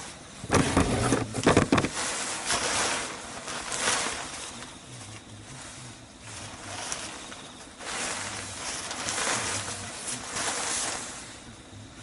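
Gusty typhoon wind rising and falling in waves, with a loud buffeting on the microphone about half a second in.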